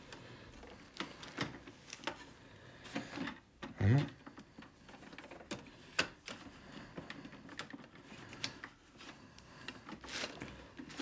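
Scattered plastic clicks and taps as the plastic casing of an Epson EcoTank L3266 printer is handled and pried at while someone works at lifting off its top section. A short low voice sound comes just before four seconds in.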